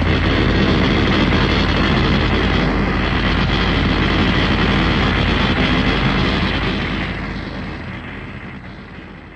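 Mechagodzilla (1993) film sound effect: a dense, steady rushing roar like jet engines, which holds for about six seconds and then slowly fades out.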